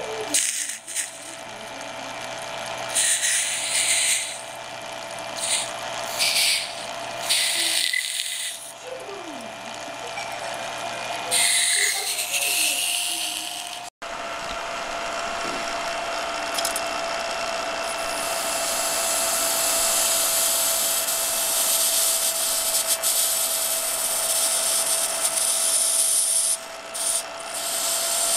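Red-hot metal inside a block of ice in a Mazilli induction heater's copper coil, sizzling and hissing as the meltwater boils against it, over a steady whine. The hissing comes in short bursts in the first half and runs continuously after a cut about halfway.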